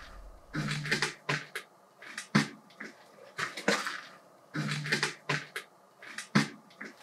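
Sharp taps on metal, a short cluster followed by single knocks, with the same sequence heard again about four seconds later.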